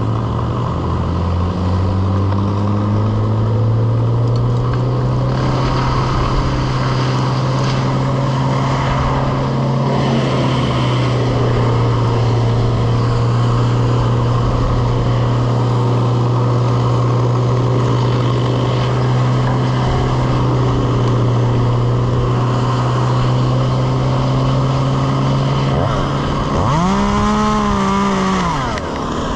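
An engine revving up over the first few seconds, then running steadily at a constant high speed. Near the end it briefly revs up and back down.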